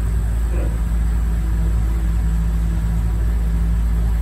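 Tour boat's engine running steadily, a loud low rumble with an even hum.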